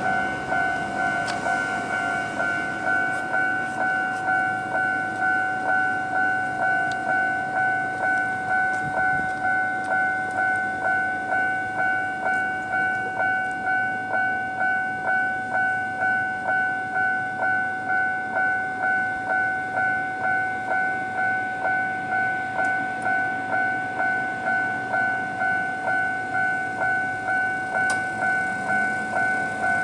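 Japanese electronic level-crossing alarm ringing its standard tone, an even two-pitch 'kan-kan' repeating about three times every two seconds. A low rising hum joins near the end.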